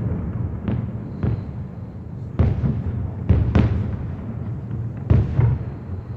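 Aerial fireworks bursting in quick succession: about seven sharp bangs, spaced from a fraction of a second to over a second apart, over a continuous low rumble.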